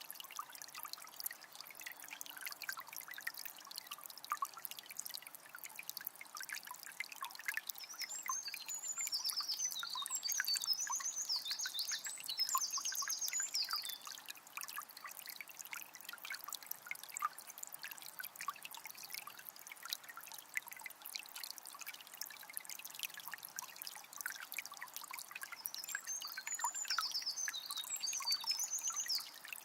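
Water of a small spring trickling steadily, full of small splashes. A songbird sings high, rapid phrases over it, in a longer stretch from about eight to fourteen seconds in and again near the end.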